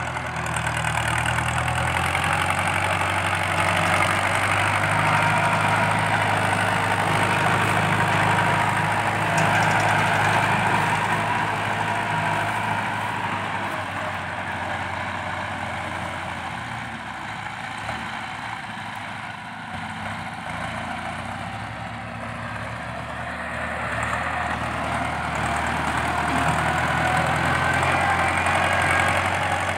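Ford 6640 farm tractor's diesel engine working under load through its loud exhaust stack as it pushes soil with a front blade; the exhaust note is very fierce and rapping. It grows louder when the tractor is close, fades in the middle, and rises again near the end.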